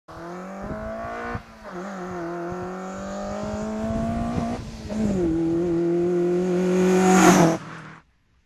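Car engine running hard at high revs with a steady note that dips briefly twice. It grows louder as the car comes close past, then cuts off suddenly.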